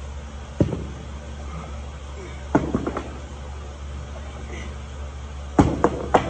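Iron weight plates knocking and clanking on a loaded barbell as a plate is worked off the sleeve: one sharp knock under a second in, two close together in the middle and a quick cluster near the end, over a steady low hum.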